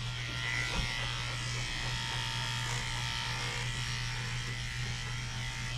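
Corded electric dog grooming clippers running with a steady buzz while clipping a doodle's thick curly coat.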